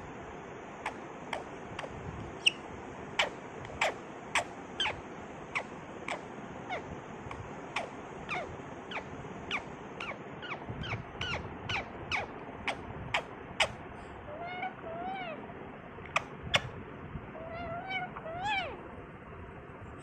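Indian ringneck parakeet calling: a run of short, sharp, downward-sweeping chirps about one or two a second, turning in the last third into softer rising-and-falling chattering calls.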